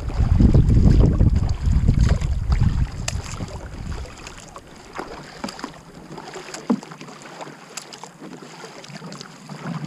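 Wind rumbling on the microphone for about the first four seconds, then the quieter small splashes and drips of a kayak paddle dipping into calm water.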